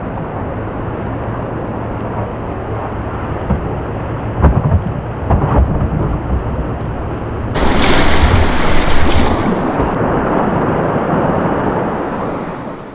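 Loud rushing whitewater with a deep rumble, a few thumps about four to six seconds in, and a sudden louder, hissier surge about seven and a half seconds in.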